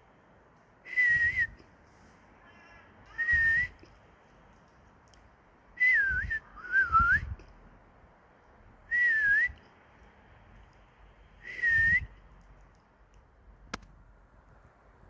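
A person whistling six short notes a few seconds apart, some flat and some dipping and rising again, with breath rumbling on the microphone under each note. A single sharp click comes near the end.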